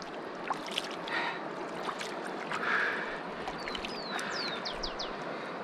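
Shallow muddy water sloshing and splashing as a landed dorado is rinsed off by hand, in three soft swells over the steady rush of the river. A run of about five short, high, falling chirps comes about four seconds in.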